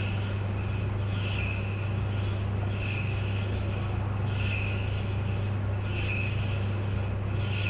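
Clothes dryer running: a steady, even motor hum under a soft swish that repeats about every second and a half.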